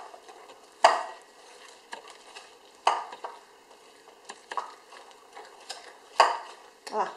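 A whisk stirring pancake batter in a mixing bowl: a soft continuous scraping with scattered sharp knocks against the bowl, the loudest about a second, three seconds and six seconds in.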